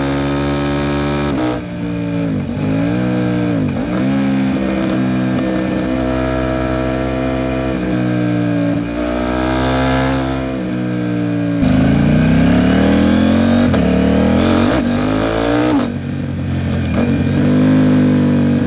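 KTM 790 Duke's parallel-twin engine through an Arrow Pro Race titanium exhaust, heard onboard while riding: it pulls, eases off and picks up again several times, the pitch dipping and climbing with the throttle and gears, with a stronger pull about twelve seconds in.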